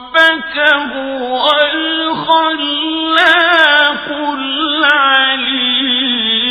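A male reciter chanting the Quran in long, ornamented melodic phrases, the voice bending and wavering on held notes.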